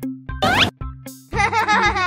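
Playful children's background music with a steady beat of plucked notes; about half a second in a quick rising whistle-like glide sounds, and from just past a second a child's giggle is laid over the music.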